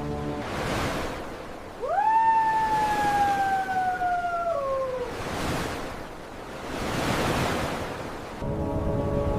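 Ocean waves washing in slow swells, with one long drawn-out call, rising sharply and then sliding slowly downward over about three seconds, a couple of seconds in.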